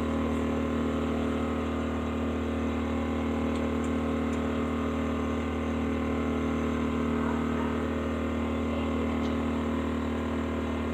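A steady mechanical hum, like a motor running, with several constant tones and no change in level.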